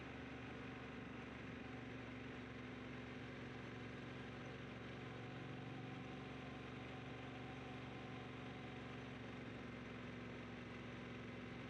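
Triumph T120 parallel-twin motorcycle engine running steadily at an even speed.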